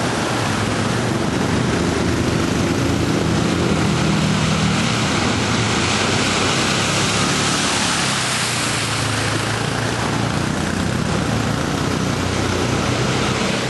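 Quad bike (ATV) engines droning at low speed, rising and falling as the machines churn through muddy water, under a constant hiss of splashing water.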